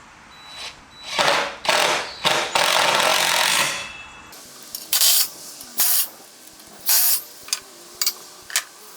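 Shop power tool run in short bursts, with one longer run of about a second, followed by several separate sharp knocks.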